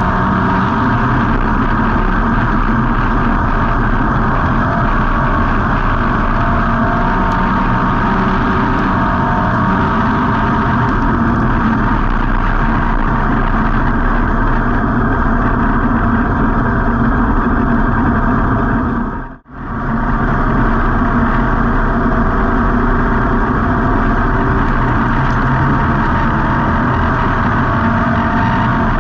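Street stock race car's V8 engine running steadily, heard on board, with no big swings in pitch. The sound drops out for a split second about two-thirds of the way through.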